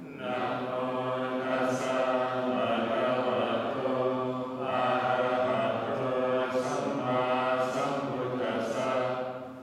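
Theravada Buddhist monks chanting together in a low, steady unison drone, in two long phrases with a short break about halfway through.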